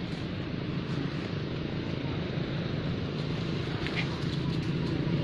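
A steady low motor hum over a wash of outdoor noise, growing louder near the end, with a short faint high squeak about four seconds in.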